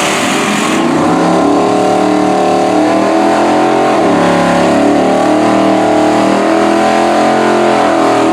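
Drag-racing car engine running hard at high revs, its pitch dipping briefly about four seconds in and then holding steady again.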